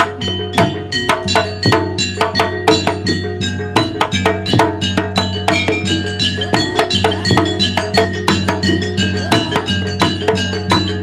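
Javanese gamelan gending played for a jaranan show: fast, dense struck percussion several times a second over ringing tuned metal tones, with a steady low tone underneath.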